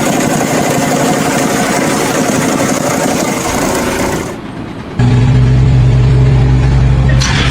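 Machine engines running: a loud, noisy engine sound for about four seconds, then after a short dip a steady, deep engine drone.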